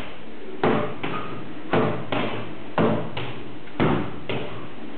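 Repeated heavy blows of a shield and sword against a stack of car tyres: about seven thuds, each with a short echo, coming roughly every half second to a second.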